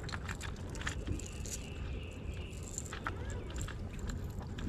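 Light clicks and small rattles of a fishing lure and its hooks being handled while a small smallmouth bass is unhooked, over a steady low rumble.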